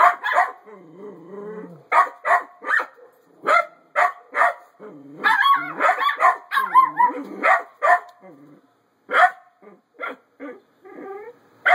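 Dog barking in quick runs of short, high barks, with a low growl in the first couple of seconds.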